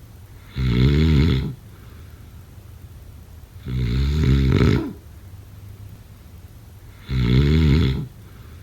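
Snoring: three loud snores, each lasting about a second and coming about every three and a half seconds, with quieter breathing between them.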